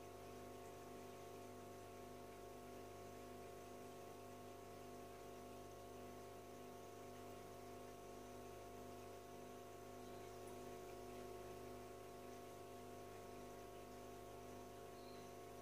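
Faint steady hum of an aquarium filter running, over a low hiss.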